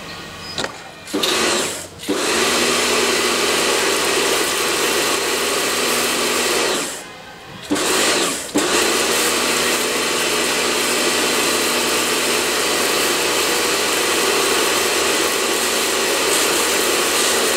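Electric pressure washer running, its motor and pump humming steadily while the wand sprays water over a car's engine bay. It cuts out briefly twice as the trigger is let go.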